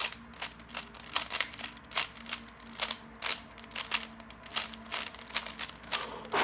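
3x3 speedcube being turned by hand: rapid, irregular clicking as the layers snap round, several clicks a second.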